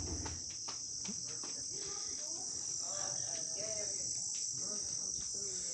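Chorus of insects, a continuous high-pitched drone that does not let up.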